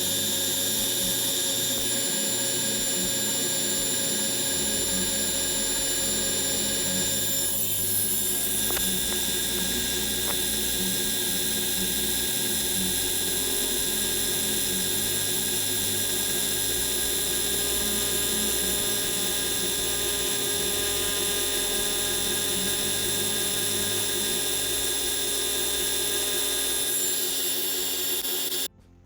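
Metalworking machine tool running with a steady high whine and a low rhythmic churn underneath. It starts suddenly and cuts off suddenly near the end.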